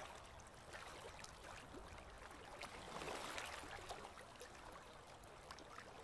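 Faint trickling and lapping water in a sea turtle tank, dotted with scattered small ticks.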